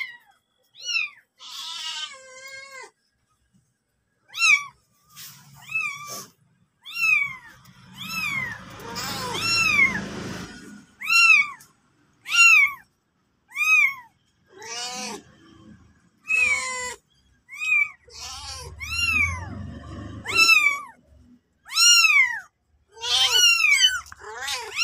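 A very young kitten mewing over and over: short, high calls that rise and fall in pitch, roughly one a second, with a few lower, fuller cat calls mixed in. Low rumbling noise comes twice, about a third and three-quarters of the way through.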